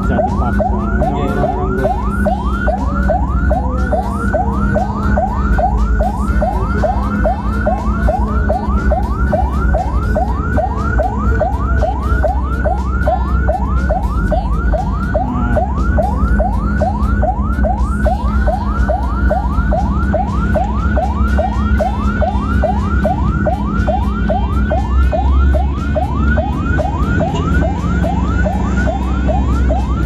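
Ambulance siren sounding continuously in a fast yelp, rapid rising sweeps about three a second, heard from inside the cab. The ambulance's engine and road rumble run steadily underneath.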